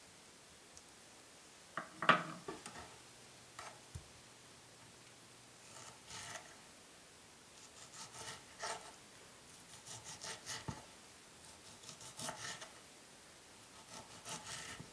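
Kitchen knife slicing ripe mango flesh into strips on a wooden cutting board, each cut a short scrape ending against the board, coming every couple of seconds. A single sharper knock on the board comes about two seconds in.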